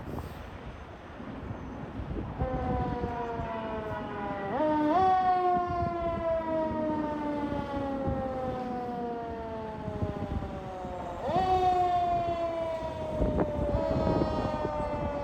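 Fire truck siren sounding, starting about two and a half seconds in; its pitch jumps up quickly twice, about four and a half and eleven seconds in, and each time winds slowly down. Engine rumble runs underneath.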